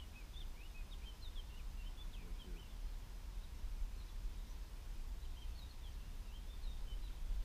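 Small birds chirping in short, quick rising and falling high notes, in two spells: through the first two or three seconds and again near the end, over a low steady rumble.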